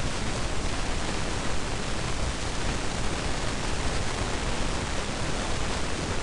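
Steady hiss of background noise, with no speech.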